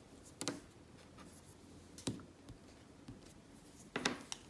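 A few light taps and clicks of art tools being put down and picked up on a work table, spread a second or two apart, over a faint room hush.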